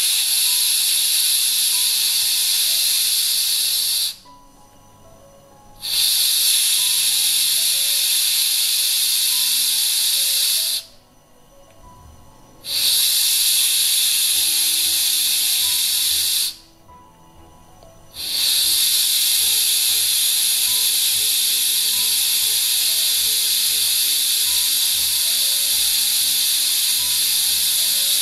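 Pressurised CO2 hissing out of the pull-ring pressure relief valve on a 9.5-litre ball-lock keg lid, in four long bursts of about four to five seconds with short breaks between; the fourth and longest is still going at the end. The keg is being vented repeatedly to purge leftover air from the headspace above the beer.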